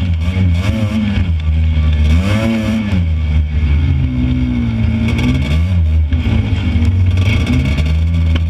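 Off-road buggy's engine running under throttle, its pitch rising and falling as it revs up about two seconds in and again before the sixth second, with scattered knocks and rattles from the ride.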